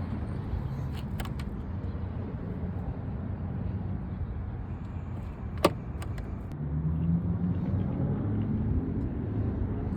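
A vehicle engine running: a low rumble, joined about two-thirds of the way through by a steady low engine hum. There is a single sharp click near the middle.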